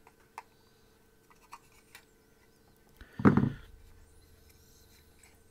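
Small clicks and scrapes of needle-nose pliers working on a PCB antenna board, with one louder brief bump about three seconds in as the pliers are set down on the work mat.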